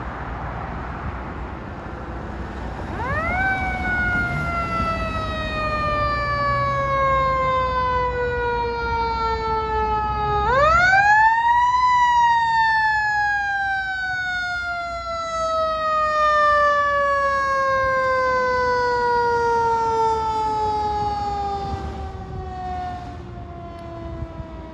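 Fire engine siren winding up twice. It rises quickly a few seconds in and falls slowly in a long wail. About ten seconds in it winds up again, to a higher pitch, then falls slowly once more and grows fainter near the end.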